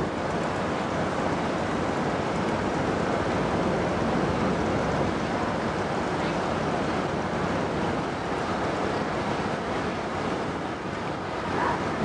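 Steady noise of a river ferry under way: a low, even engine hum beneath a rush of wind and water.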